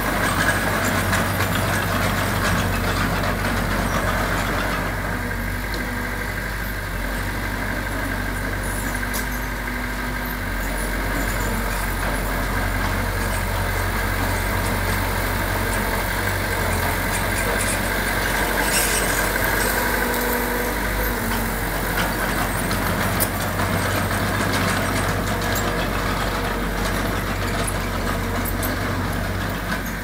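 Heavy diesel engine of earthmoving equipment running steadily, a continuous low drone with a steady higher whine over it.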